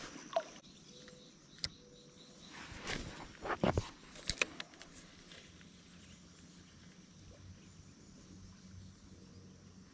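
Quiet streamside ambience with a faint steady insect hiss. About three to four and a half seconds in comes a short cluster of knocks and scrapes.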